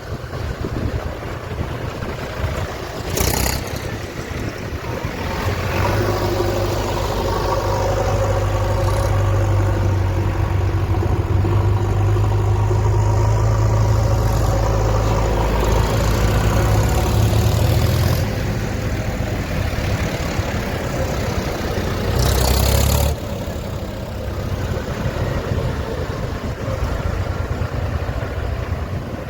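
Diesel engine of heavy farm or earthmoving machinery running, pulling harder for about twelve seconds in the middle before easing back. Two short loud bursts of noise break in, one a few seconds in and one past the middle.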